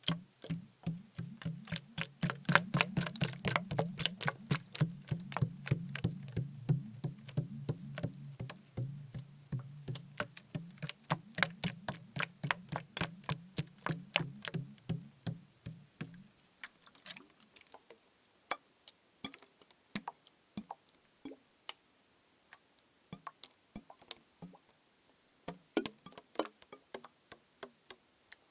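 Fingers tapping rapidly on a liquid-filled plastic bottle, several sharp taps a second. A low steady hum under the taps cuts off about halfway, and the tapping then goes on fainter and sparser.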